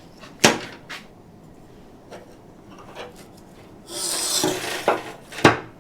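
Chainsaw bar and chain being handled: a sharp metal knock, a few light clicks, a short scraping rasp about four seconds in, then two more knocks.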